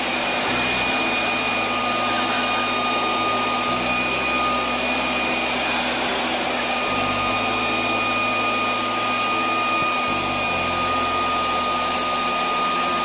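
Loud, steady whooshing of a small motor-driven fan, with a steady high whine.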